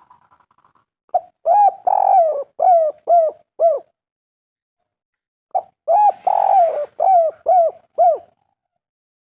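Spotted dove (tekukur) cooing twice in its 'kuk 3' song. Each phrase is a short note, a longer drawn coo, then three short arched 'kuk' notes about half a second apart, and the second phrase starts about halfway through.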